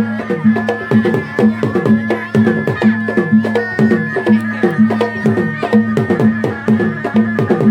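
Traditional southern Thai Malay folk music: fast, even drumming with strokes that bend down in pitch and a steady pulsing low beat, under a sustained high melody line.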